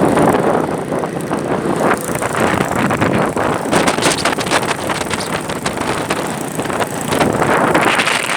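Wind buffeting the microphone in uneven gusts over the steady road and engine noise of a moving vehicle ridden in the open.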